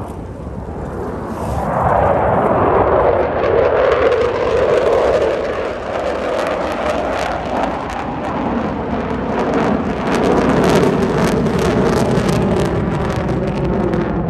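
Blue Angels F/A-18 Super Hornet jets roaring past at low level. The noise swells about two seconds in and stays loud, with a ragged crackle running through it.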